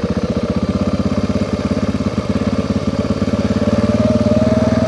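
650 cc motorcycle engine running at low, even revs, its firing pulses steady, with a faint whine rising slightly near the end.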